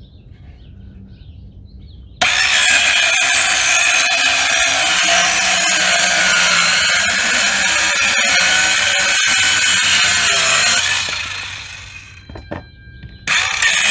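Cheap cordless mini circular saw starting up and ripping through plywood with a steady, loud whine, then released and spinning down about eleven seconds in. It starts again just before the end.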